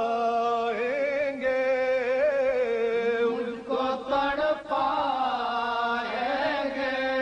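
Men chanting a noha, a Shia mourning lament, in long held notes that waver in pitch, with brief breaks for breath.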